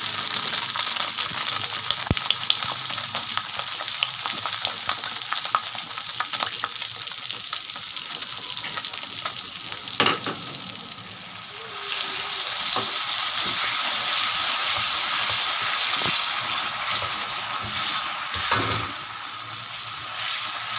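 Mee goreng noodles sizzling as they fry in a pan while being stirred, with scattered sharp clicks of stirring. The sizzle grows louder about halfway through and stays up.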